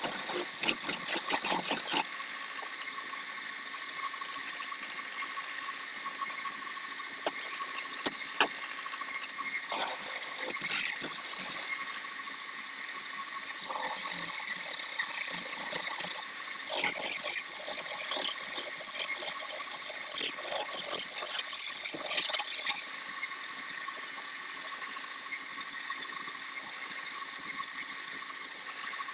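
Wood lathe running with a steady whine while a turning chisel cuts into the spinning wood in bursts, a rapid clicking chatter of the tool on the workpiece. The cutting comes and goes, heaviest over a long stretch in the second half.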